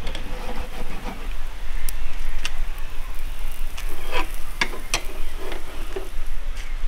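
Steel skewers clinking and knocking against the metal charcoal grill as quail skewers are turned, a handful of sharp clinks, the loudest about four to five seconds in, over a steady low rumble.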